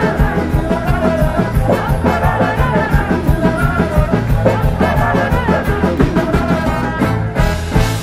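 Live rock band with acoustic and electric guitars playing a fast, upbeat song with a steady driving beat. The band breaks off sharply at the very end.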